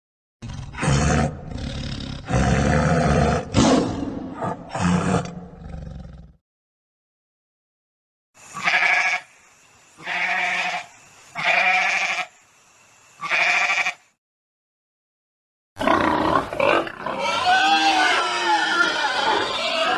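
A sequence of separate animal calls: a loud grunting roar lasting about six seconds, then four short, evenly spaced calls, then a long wavering call that begins near the end and runs into a horse's whinny.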